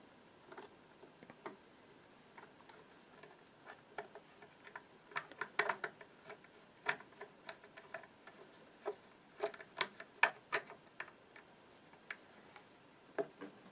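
A screwdriver turning screws into the bottom cover of a Janome MYExcel 18W sewing machine: sparse, irregular clicks and ticks of the blade in the screw heads, bunching into quicker runs a few times.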